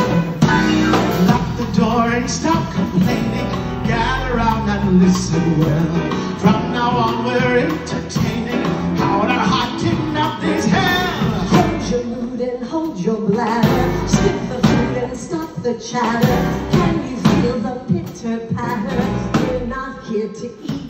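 Live band music with a man and a woman singing into microphones, backed by piano, bass and drums, heard from the audience seats of a theater.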